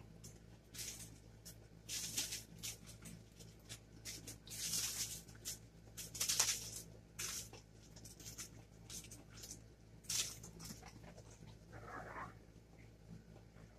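Cotton fabric being folded over the edge of a knitted piece and clipped in place on a cutting mat: a string of short rustles and a few sharp clicks. Near the end comes a short wavering whine.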